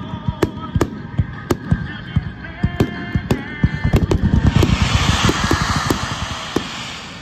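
Fireworks display: shells bursting in quick succession, many sharp bangs. About four seconds in a dense hiss swells up under the bangs as a barrage of shells fires at once, then fades near the end.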